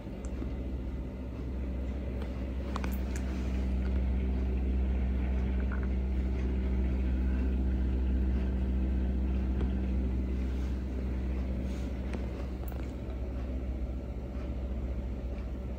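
A steady low rumbling hum that swells a little in the middle, with a couple of faint clicks.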